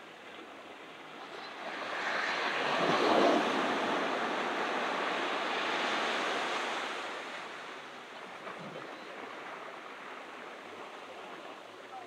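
Ocean surf on a beach. One wave swells in about a second and a half in, breaks loudest around three seconds, and washes for a few seconds. It then recedes to a softer steady hiss of surf.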